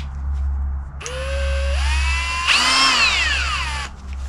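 Electric drill spinning up about a second in with a rising whine, then biting into steel plate: its pitch sags steadily under the load until it stops shortly before the end. A steady low hum runs underneath.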